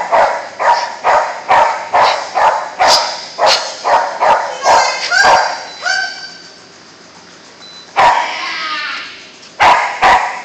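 A dog barking over and over, about two and a half barks a second, echoing off metal walls, rising into higher-pitched yips about five seconds in, then stopping as it is released to sprint. After a pause, a voice and two sharp knocks come near the end.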